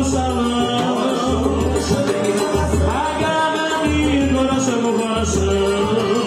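Forró pé de serra band playing: an accordion carries a sustained melody over the zabumba's repeating bass beat and a ticking triangle.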